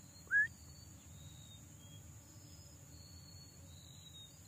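Steady high-pitched insect drone of crickets with faint thin whistles over it, broken once about half a second in by a single short, loud rising chirp.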